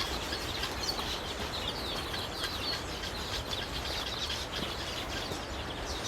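Many birds chirping continually in quick, short calls, over a steady low rumble.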